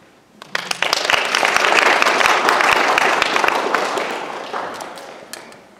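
Audience applauding. The clapping starts about half a second in, builds quickly, then fades away over the last couple of seconds.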